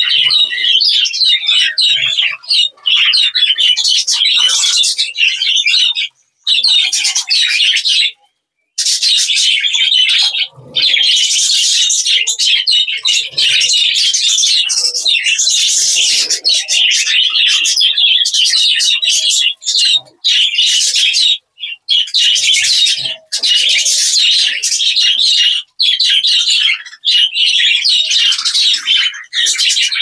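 A flock of budgerigars chattering and warbling, with short breaks about six and eight seconds in.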